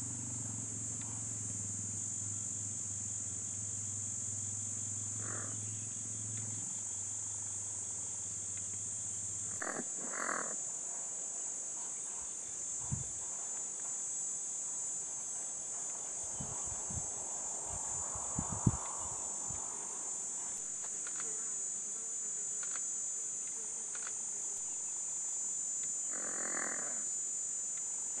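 Insects chirring steadily in one high, unbroken trill. A low hum stops about ten seconds in, and a few faint thumps come in the middle.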